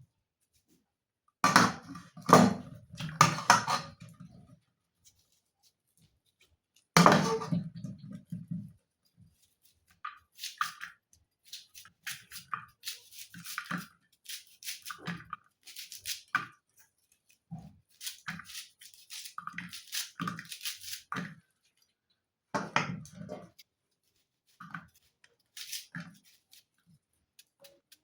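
Cooking utensils knocking and scraping in irregular bursts, with two heavier clattering stretches early on followed by many short scrapes and clicks.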